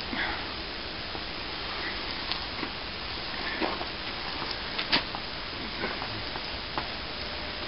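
Wet hemp-reinforced plaster being worked and scraped: soft scraping and dabbing with scattered small clicks and taps, the sharpest a tap about five seconds in, over a steady background hiss.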